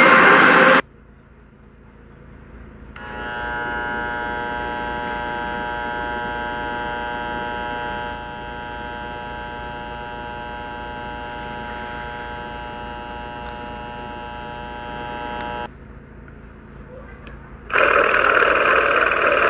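A steady, even buzzing tone with many overtones, starting about three seconds in and stopping suddenly near the end, after a brief quiet gap. A loud sound cuts off just under a second in, and another loud sound begins near the end.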